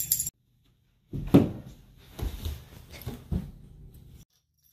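A run of thumps and knocks as a child tumbles and rolls on a floor, the loudest thump just over a second in and a few more follow. A brief jingle of bells cuts off at the very start.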